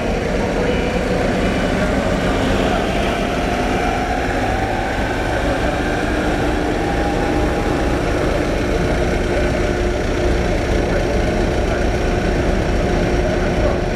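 Engines of forklifts and the ship's crane machinery idling steadily: a low, even drone with a faint whine that rises and falls a few seconds in.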